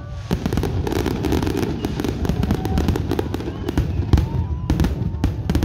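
Fireworks display going off: a continuous barrage of bangs and crackles, several a second, over a steady low rumble.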